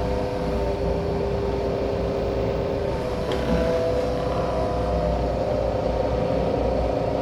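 A small electric motor in a treatment device running with a steady hum, its pitch stepping up about three seconds in.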